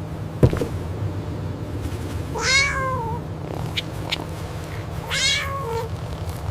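A cat meowing twice, each meow drawn out for about a second, with the second starting about two and a half seconds after the first. A sharp click comes about half a second in, over a steady low background rumble.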